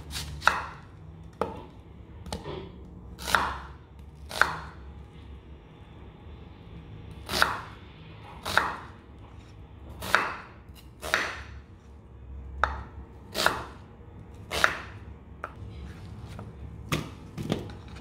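Kitchen knife cutting raw onions on a wooden cutting board: irregular single cuts, roughly one a second, each a brief slice through the onion ending in a knock of the blade on the board.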